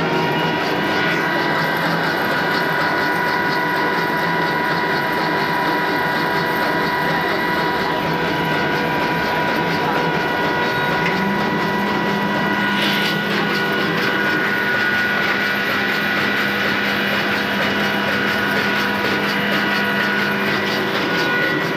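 Boiler furnace's forced-draught blower running steadily, a loud whir with several steady whining tones; a lower hum joins about halfway through. The blower is driving air through a freshly lit, smoking furnace.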